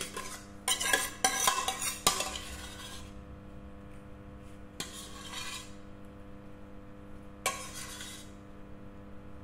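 Metal spoon scraping and clinking against a steel pot as tomato sauce is scooped out and spread over lasagna sheets. It comes in three or four spells with pauses between, the longest about a second in.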